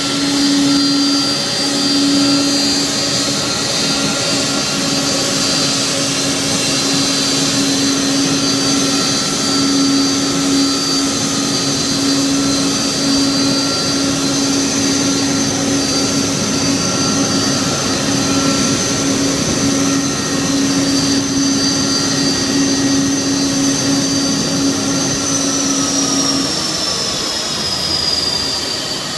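Airbus A300-600 freighter's Pratt & Whitney PW4158 turbofans running at idle: a loud, steady roar with a high whine and a low hum. About 25 seconds in the whine begins to fall in pitch and the low hum stops, as the engines start to spool down on the stand.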